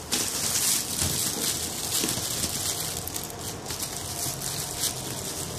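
Thin clear plastic bag crinkling and rustling as hands slide a boxed folding solar panel out of it, a dense crackle of many small crackles.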